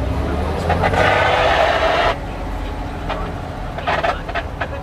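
SupaCat glider-launch winch running, heard from inside its cab: a steady engine drone with a louder rushing noise over it that cuts off abruptly about two seconds in.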